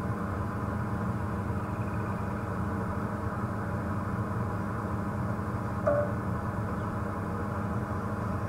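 Engine of an open safari game-drive vehicle running steadily as it drives slowly along a dirt track. A short pitched note sounds once just under six seconds in.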